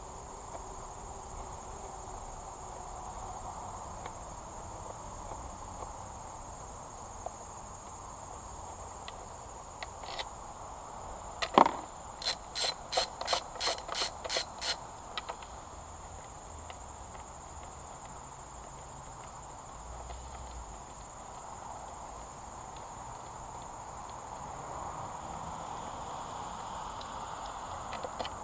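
Steady high chirring of insects, with one sharp knock and then a quick run of about nine evenly spaced clicks partway through.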